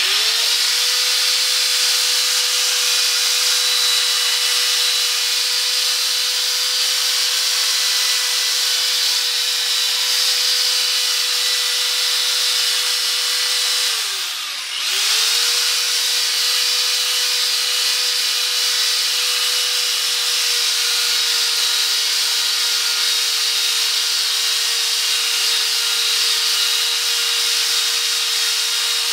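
Power drill spinning a P500 sanding disc against a yellowed headlight lens, sanding off the oxidation as a steady motor whine with a hiss of abrasion. About halfway through, the motor winds down briefly and spins back up.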